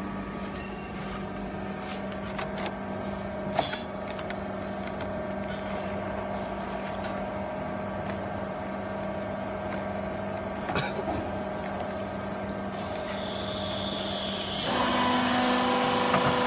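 Hydraulic baler's motor and pump running with a steady hum, with a few light clicks and a brief squeal. The hum grows louder and fuller near the end.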